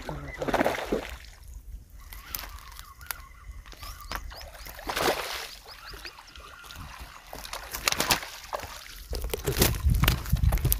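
A hooked fish splashing at the water's surface as it is reeled in on a spinning rod, in scattered bursts. Near the end come denser low thumps as the landed fish flops on the dry bank.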